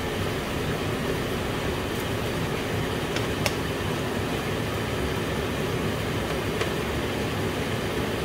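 Steady low rushing noise, with a few light knocks of a wooden spoon against a frying pan as chicken pieces are stirred.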